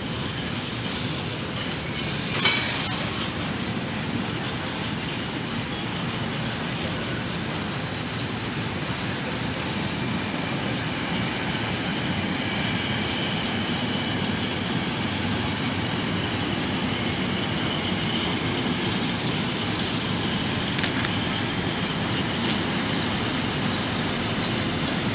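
Freight train of flat container wagons rolling steadily past, with wheels running over the rails. A short, sharp, loud noise comes about two and a half seconds in, and a thin, high wheel squeal rises above the rumble around the middle.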